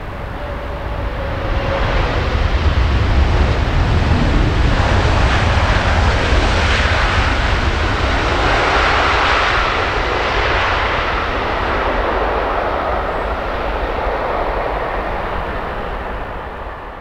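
Jet engines of a long-haul airliner on final approach passing close by. The noise swells over the first couple of seconds, stays loud for most of the pass, then fades and cuts away near the end.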